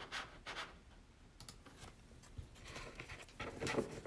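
Hands handling a stack of paper baseball cards: light, scattered scratchy sliding and tapping of card stock, busier near the end as the stack is gathered up.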